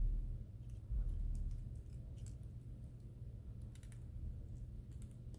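Light clicks and taps of small phone parts being handled on a workbench, scattered through the middle, with two dull low thuds of handling in the first second and a half.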